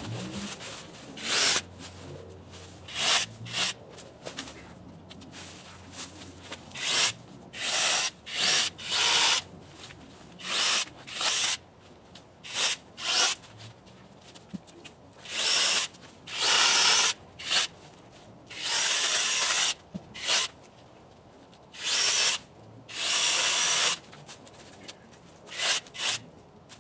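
Electric mini chainsaw cutting through small branches in repeated bursts. Most cuts are short, and a few in the second half run for a second or more, with quieter pauses between them.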